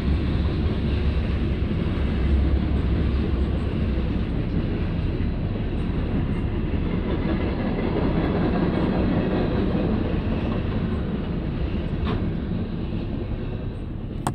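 Freight train cars rolling past through a level crossing: a steady rumble of steel wheels on the rails, easing off near the end as the last car clears.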